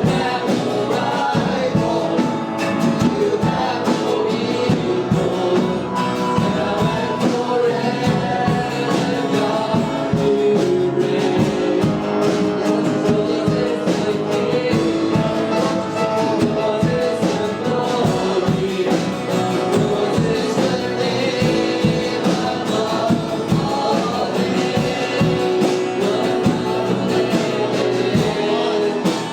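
Live gospel worship music: a band with guitar plays a song while voices sing, with a steady beat throughout.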